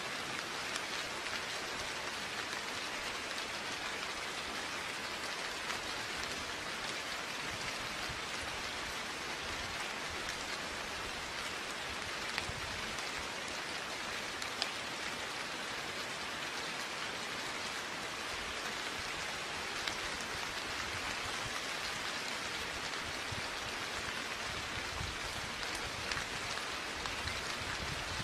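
Steady rain falling on surfaces, an even hiss with a few distinct drops ticking now and then.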